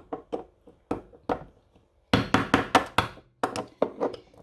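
A hammer striking a screwdriver driven into the lid of a seasoning grinder jar, to widen a hole in it: irregular knocks that come faster and louder from about halfway.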